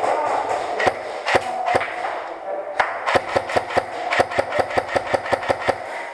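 Airsoft guns firing indoors: a few scattered shots in the first seconds, then a quick string of shots at about five a second, over a steady rushing noise.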